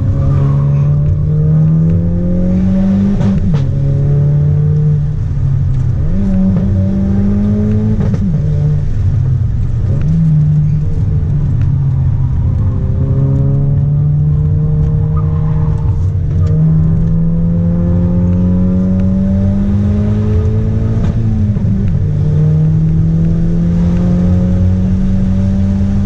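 Turbocharged car engine heard from inside the cabin under hard acceleration on a hill-climb run: its pitch climbs steadily through each gear and drops sharply at each upshift, several times over.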